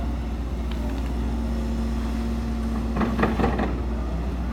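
Hidromek crawler excavator's diesel engine running steadily under load. About three seconds in comes a brief burst of noise as the swung bucket tips out its load of soil.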